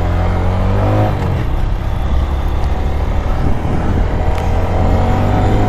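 Kawasaki KLX300SM's single-cylinder four-stroke engine accelerating through the gears: the pitch climbs, drops at an upshift about a second in, then climbs steadily again toward the end.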